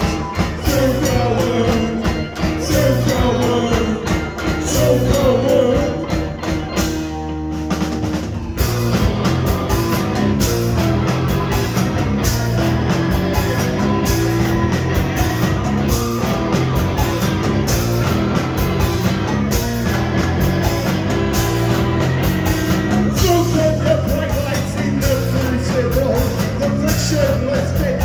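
Live rock band playing: drum kit, electric guitars and keyboard, with a lead vocal singing at the start and again near the end. About seven seconds in the drums and bass briefly drop out for a short break before the full band comes back in.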